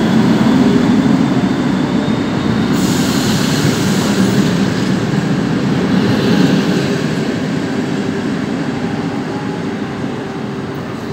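A departing passenger train rolling past: the rear of a Czech class 754 'Nurek' diesel locomotive, then its coaches rumbling over the rails and slowly fading as the train pulls away. A brief high hiss comes about three seconds in.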